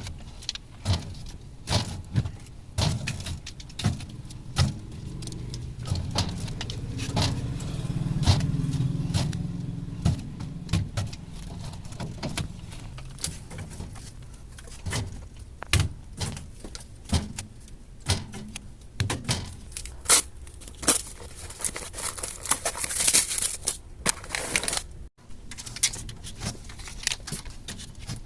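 Drink containers being handled and set onto store fridge shelves: a steady run of clinks and knocks. A low rumble swells and fades in the middle.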